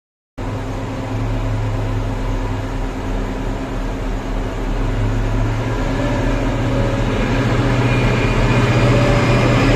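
Heavy diesel machine engine running steadily under load. It cuts in abruptly just after the start and grows a little louder, with a faint high whine coming in over the second half.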